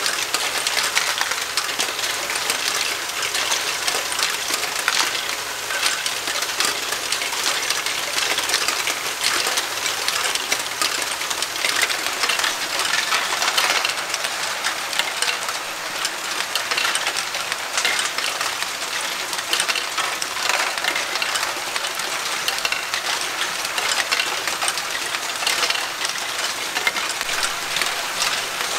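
Lego Great Ball Contraption modules running: small plastic balls clattering through Lego Technic lifts, conveyors and tracks amid the whir of the motor-driven mechanisms. The result is a dense, steady rattle of quick clicks.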